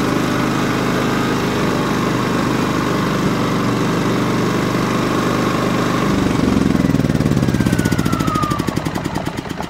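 Champion 3400-watt dual-fuel inverter generator's single-cylinder engine running steadily on propane, then, about six seconds in, faltering and winding down in slowing pulses with a falling whine as it is shut off, the propane tank valve closed.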